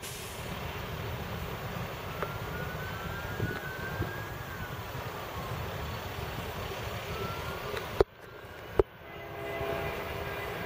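Steady rumble of heavy work machinery running, with faint whines that rise and fall. About eight seconds in, two sharp clicks break it off and a quieter sound follows.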